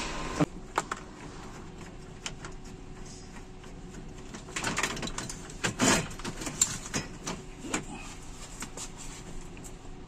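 Scattered clicks and knocks of plastic dashboard trim being handled and tugged at as the lower dash panel is worked loose, with a busier cluster of rattles about halfway through.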